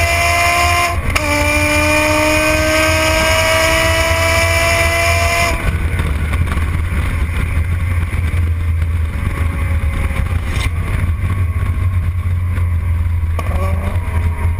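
Twin-supercharged V10 of a G-Power BMW E60 M5 Hurricane RR accelerating hard, its engine note climbing steadily, with a quick gearshift about a second in. About five and a half seconds in the throttle closes and the engine note falls away. There is a short burst of throttle near the end.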